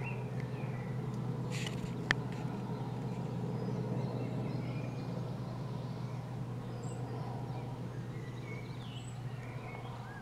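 Westland Sea King twin-turboshaft helicopter flying past at a distance: a steady low drone that swells a little, then fades toward the end. Small birds chirp now and then, and a single sharp click comes about two seconds in.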